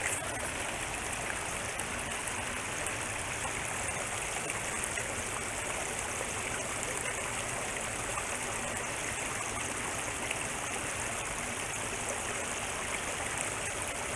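Steady rushing of a flowing river's current along the bank, an even hiss of water with no change in level.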